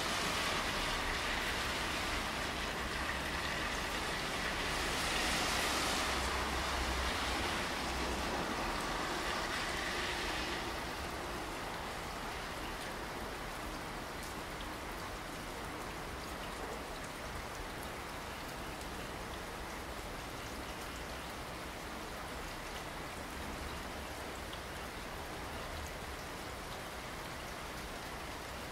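Steady rain falling and splashing on surfaces, an even hiss with no distinct drops standing out. It is louder and brighter for the first ten seconds or so, then settles slightly quieter.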